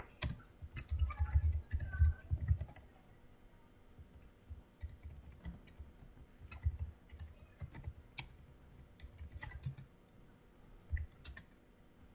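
Typing on a computer keyboard: irregular key clicks, with louder, duller keystrokes bunched in the first three seconds.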